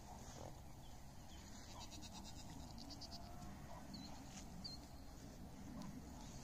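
Faint, scattered bleats from a herd of ibex nannies and kids over a low steady background rumble, with a few faint high chirps.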